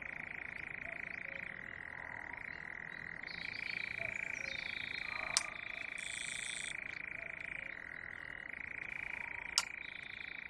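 A steady, high-pitched chorus of frogs calling without a break, with a few higher bird-like calls over it. There are two sharp clicks, one about halfway through and one near the end.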